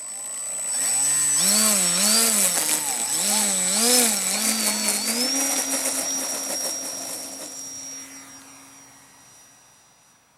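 Electric motor and propeller of a Tower Hobbies Millennium Master EP model plane. It revs up and down about four times, then holds a steady whine that fades over the last few seconds.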